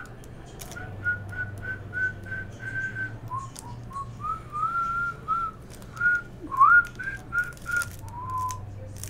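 A person whistling a tune: a string of short notes at about one pitch, a few upward slides, ending on a lower, longer note. Faint crinkles and clicks of plastic-wrapped card packs being handled underneath.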